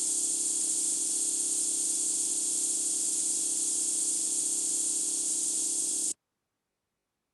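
CNC lathe running sound: a steady hiss over a low hum that cuts off suddenly about six seconds in.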